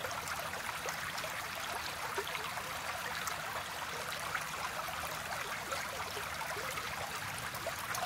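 Running water trickling steadily, as in a small stream, with many fine splashing ticks.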